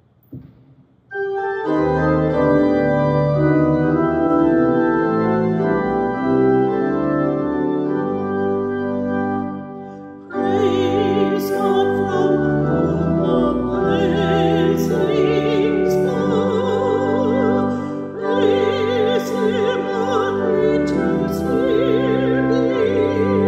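Organ playing a hymn introduction in held chords; about ten seconds in, a woman's solo voice with vibrato comes in, singing the hymn over the organ.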